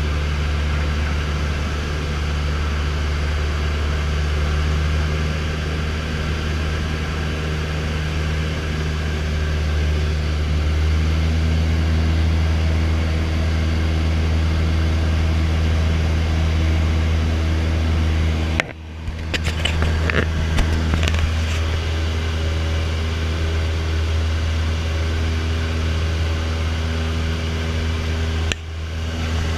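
Single-engine light aircraft's piston engine and propeller running with a steady, even drone, heard from inside the cabin. The drone dips briefly twice, about two-thirds through and near the end, with a few clicks after the first dip.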